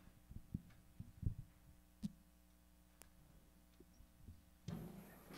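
Faint, scattered low thumps and knocks as band members set guitars down on their stands and move about the stage, over a steady low hum. Louder rustling and shuffling starts near the end.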